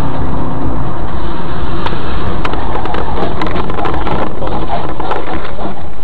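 Loud, steady road and engine noise of a car driving at speed, heard from inside the cabin through an overloaded dashcam microphone, with a few faint clicks and knocks scattered through it.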